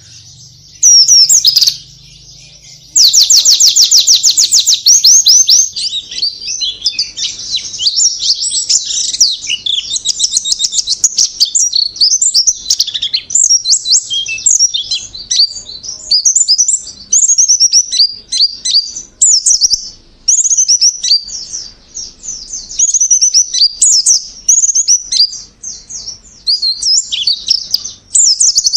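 White-eye (pleci) singing a long, high, rapid twittering song in varied phrases, with a very fast, even trill about three seconds in.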